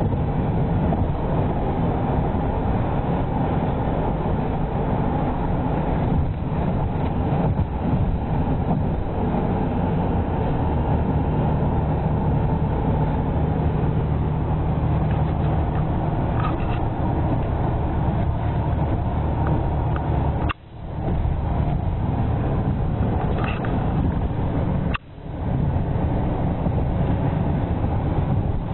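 Steady road noise of a car driving at speed, a dense rush of tyres and wind over a low engine drone, heard from inside the car. The sound cuts out sharply twice in the last third and comes back within about a second each time.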